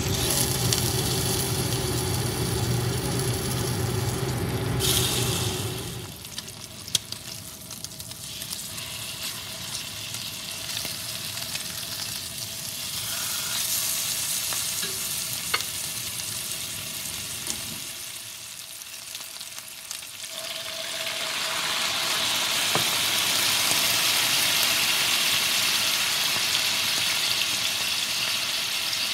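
Steaks searing in butter in a cast-iron skillet, sizzling steadily, with a few light clicks of tongs or chopsticks. A low hum in the first six seconds stops suddenly. About twenty seconds in, the sizzle grows louder and fuller as liquid (sake, then soy sauce) goes into the hot pan and boils around the meat.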